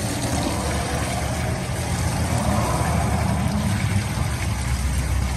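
Diesel flush and sludge draining out of a 1939 Ford flathead V8's oil pan in a steady stream and splattering on the ground, over a continuous low rumble. The pan is being emptied of the diesel used to clear out sludge after it sat full of water.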